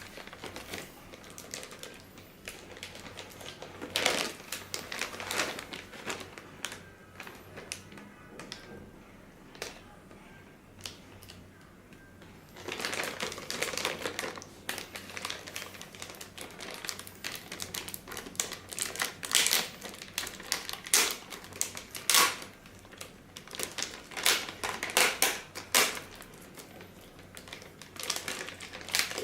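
Packaging being opened and handled: crinkling plastic and cardboard with many scattered clicks and taps, quieter for a few seconds in the middle.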